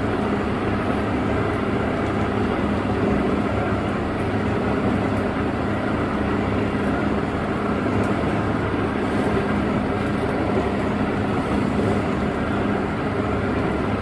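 Beachcraft 33 motorboat under way: its engine running in a steady drone, together with the rush of the hull through choppy water, heard from inside the cabin.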